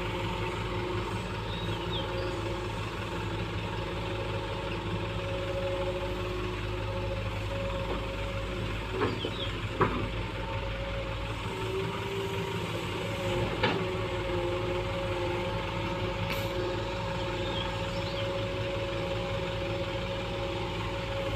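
Hitachi EX120-3 hydraulic excavator running steadily, a continuous engine drone with a few steady held tones over it. A few sharp knocks come near the middle.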